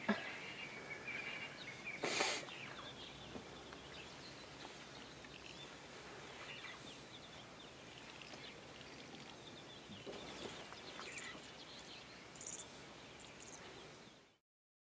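Faint bush ambience with scattered small bird chirps and calls, and one brief noisy burst about two seconds in. The sound cuts off abruptly shortly before the end.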